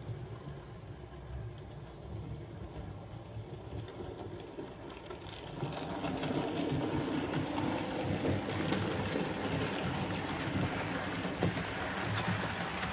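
Model railway steam locomotive and its coaches running on the track: a quieter rumble while the train is still in the tunnel, growing louder about six seconds in as it comes out and passes close by.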